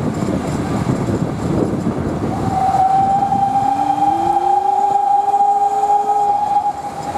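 Steam whistle of GWR 6400 Class pannier tank no 6412 sounding one long steady note from about two seconds in, with a lower tone rising beneath it, heard from a carriage it is hauling. Underneath is the rumble of the train running on the track.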